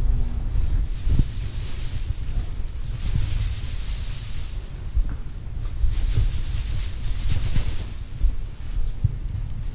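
Straw rustling and swishing as it is forked up and tossed into a cattle pen, loudest about three seconds in and again around six to eight seconds, over a steady low rumble of wind and handling noise on the microphone, with a few light knocks.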